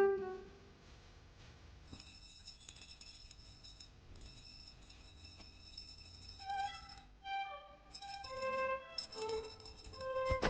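Background music: a soft, slow melody of held notes, quiet at first and growing clearer and fuller about two-thirds of the way in.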